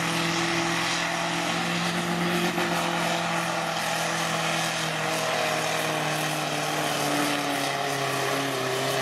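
Pulling tractor's diesel engine running hard under full load as it drags a weight-transfer sled, a loud steady drone. Its pitch drops slightly near the end as the engine slows.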